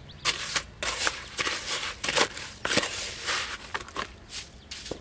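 Hand and trowel scraping and scooping gritty wet mortar in a plastic bucket: a run of short, irregular scrapes.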